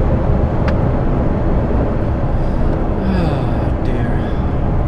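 Steady engine and road noise inside a car-transporter lorry's cab at motorway speed. A low steady hum joins about halfway through, and a brief murmur of a voice comes about three seconds in.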